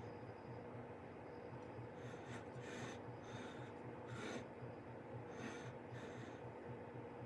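A kitchen utensil scraping through lemon curd in about six short, faint strokes over a low steady hum.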